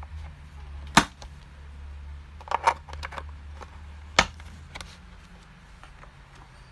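A handful of sharp clicks of small steel tool pieces (hex nut setters and screwdriver bits) knocking against and seating in a hard plastic accessory case, the loudest about a second in and just past four seconds, with a quick pair in between.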